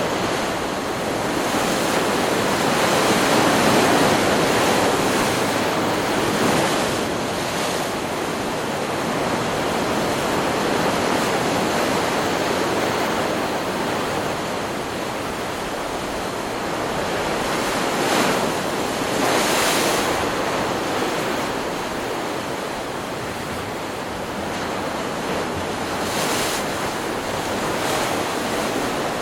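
Ocean surf from a stock beach recording: a continuous wash of breaking waves that swells and fades, with a few sharper rushes of water near the middle and end.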